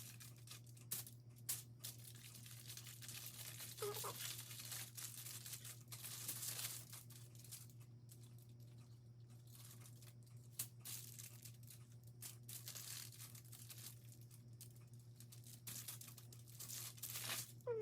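Aluminium foil crinkling and rustling in irregular stretches, with small clicks, as a meatloaf roll is wrapped in it and its ends twisted shut.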